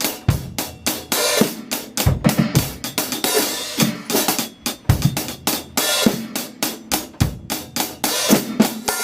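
Drum kit playing a steady groove: a fast, even run of hi-hat strokes over bass-drum and snare hits. The bass drum adds a quick extra stroke, the "hiccup" just before the main beat.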